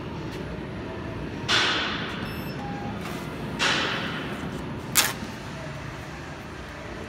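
Three sudden bangs over a steady low background hum, the first two with long echoing tails that fade over about a second, the third a sharper, shorter crack. They echo in a large warehouse.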